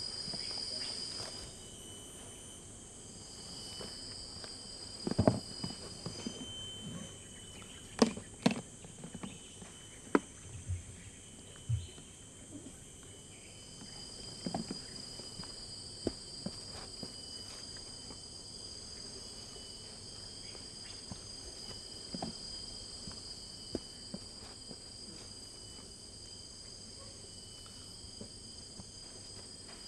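High-pitched insects trilling steadily, one of the trills breaking off and coming back a few times. Scattered knocks and footsteps over it, thickest between about 5 and 16 seconds in.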